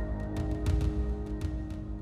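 Background music with sustained chords and a steady percussive beat.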